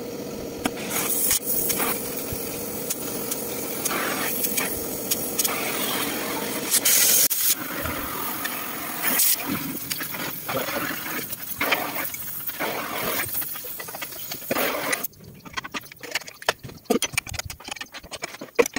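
Oxy-fuel cutting torch burning with a steady hiss as it cuts into a truck's steel chassis frame rail. About fifteen seconds in the hiss stops and short scrapes and knocks of a hand tool on the cut metal follow.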